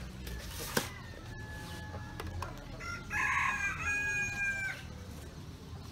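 A rooster crows once, a single pitched call of nearly two seconds starting about halfway through. A single sharp knock sounds about a second in.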